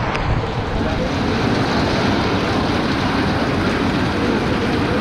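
Heavy typhoon rain and strong wind: a steady rushing noise, with wind buffeting the microphone.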